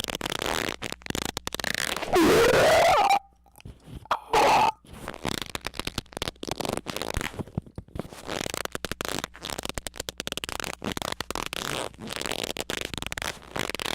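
A loud, rising squeak about two seconds in, a second short squeak a couple of seconds later, and dense crackling clicks through the rest.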